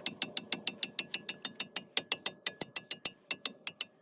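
Hand socket ratchet clicking in a fast, even rhythm, about six or seven clicks a second, as a brake caliper mounting bolt is backed out.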